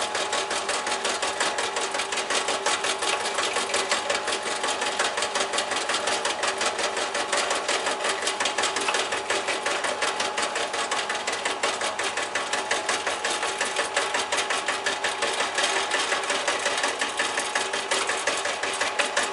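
Benchtop drill press running steadily, its bit drilling holes through the soft plastic base of a socket outlet. A motor hum comes with a rapid, even ticking.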